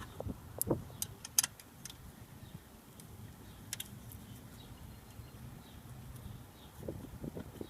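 A few light metallic clicks and clinks from bolts and hand tools being handled while mounting bolts are threaded in by hand. Most of the clicks fall in the first second and a half, with one more a little later.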